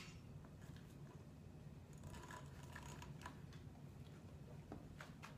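Near silence: room tone with a low hum and a few faint clicks and rustles.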